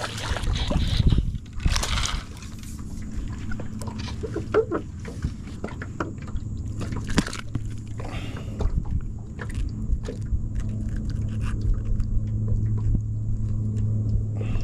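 A boat motor humming steadily, a little louder near the end, with scattered clicks and knocks from gear being handled in the boat.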